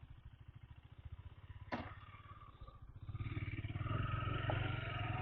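KTM 250 Duke's single-cylinder engine running with a quick, even low thump, its tensioner newly replaced; about three seconds in it grows louder as the revs rise.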